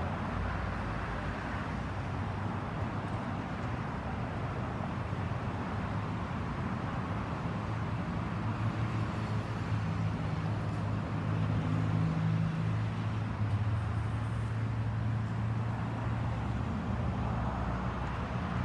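Steady distant roar of a Boeing 737-800's jet engines as it climbs away, mixed with road traffic. A vehicle engine hum swells in the middle and then fades.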